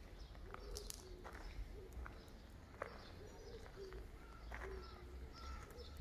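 Faint bird calls: short low notes repeating every half second or so, with a few higher notes among them.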